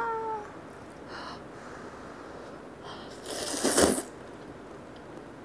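A woman slurping a mouthful of spicy konjac noodles, one long noisy slurp about three seconds in lasting under a second. A short hummed 'mm' comes right at the start.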